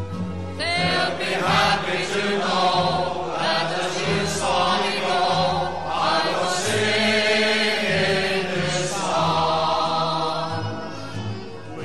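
Background music with sustained, choir-like singing voices over a low bass note.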